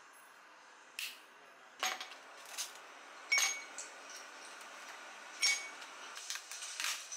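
Ice cubes dropped one by one into an empty drinking glass, clinking against the glass about six times at uneven intervals, each strike with a brief ring.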